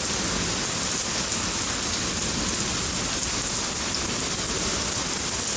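Heavy rain falling on a concrete driveway: a steady, even hiss of downpour that holds constant throughout.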